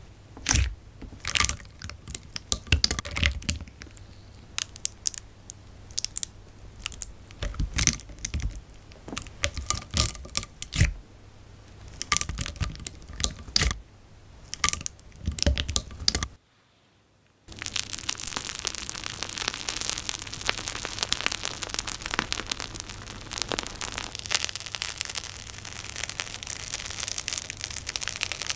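Slime being squeezed and pressed by hand: irregular sticky clicks and pops at first, then, after a short silent break, a dense continuous crackling.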